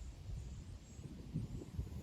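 Wind buffeting the microphone outdoors: an uneven, gusting low rumble.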